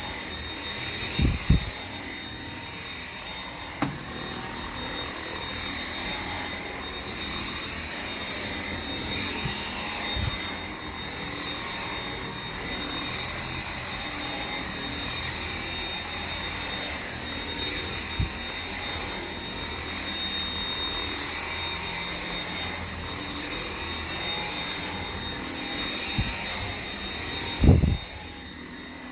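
Dyson V7 cordless stick vacuum running with its motorhead: a steady high motor whine over rushing air, swelling and fading every second or two with the strokes across the floor. A few short knocks come through, the loudest near the end.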